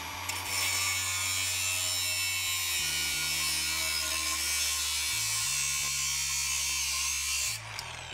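A cutoff wheel slices a slot into a steel exhaust pipe end, giving a steady high-pitched grinding hiss for about seven seconds. Near the end it lifts off the metal and winds down.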